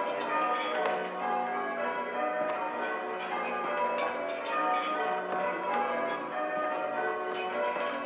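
Change ringing on a ring of six church bells, tenor 15 cwt in F sharp. The bells strike one after another, their tones overlapping and ringing on.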